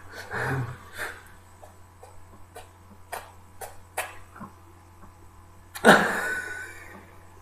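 A man laughing under his breath, with several short sharp breaths, and one loud gasping burst of laughter about six seconds in.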